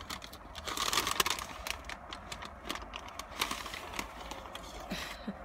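A paper bakery bag crinkling and rustling as it is opened and handled, in irregular crackles, loudest about one to two seconds in.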